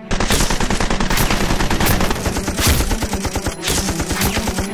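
Rapid automatic gunfire in the style of a machine gun, a fast rattle of shots set to Nerf blasters firing. It breaks in suddenly over a background music track.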